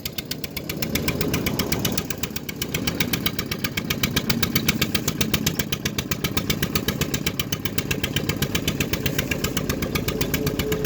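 An engine running steadily with an even, rapid thumping, about seven beats a second.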